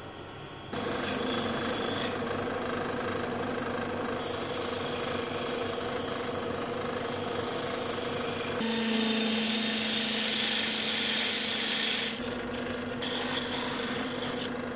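Wood lathe running with a steady motor hum while a hand-held turning tool cuts into a spinning holly blank, a hissing, rasping cut. It starts about a second in, and the cut changes in loudness and tone a few times.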